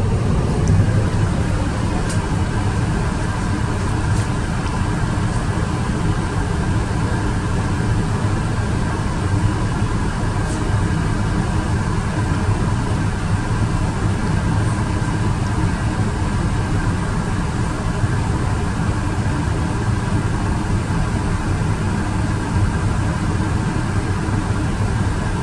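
Steady drone of engine and airflow noise inside an Airbus A380 airliner's cabin in flight, deep and even, with a faint steady whine above it.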